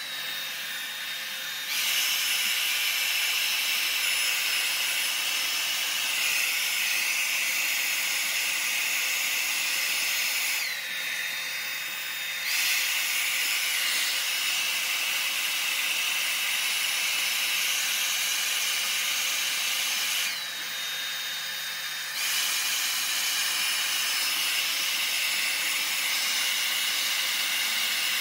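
Handheld hair dryer running, a steady rushing hiss of air with a high motor whine. The sound turns quieter for about two seconds roughly every ten seconds, then comes back up to full strength.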